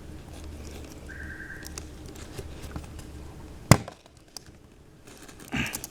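Small metal clicks of a tool working at a stuck pin in a folding knife's frame, with a brief squeak about a second in and one sharp knock a little before four seconds in. The pin is stuck fast and does not come out.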